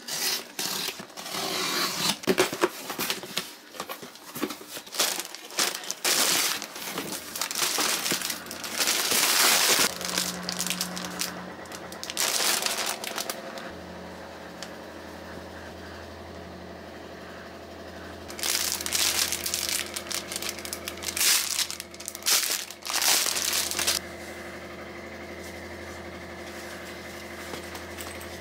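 A cardboard parcel being opened and its packaging handled: crinkling and rustling in bursts through the first half and again a few seconds after that, with quieter pauses in between. A low steady hum sits under the quieter stretches.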